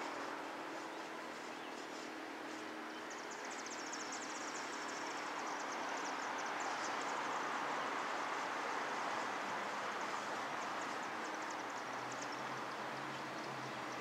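Steady outdoor background hiss with no siren sounding. A rapid, high-pitched chirping comes in a few seconds in and fades out near the end.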